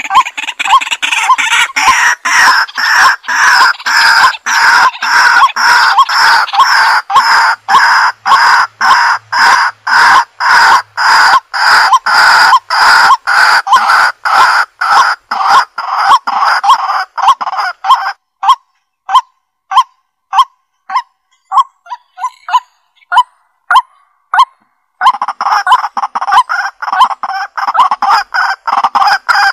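Fowl calling over and over in quick repeated calls, about three a second. For several seconds past the middle the calls become shorter and sparser, then the dense calling picks up again near the end.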